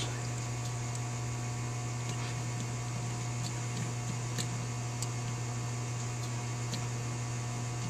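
Steady electrical mains-type hum, with a few faint light clicks scattered through it from small carburetor parts and screws being handled.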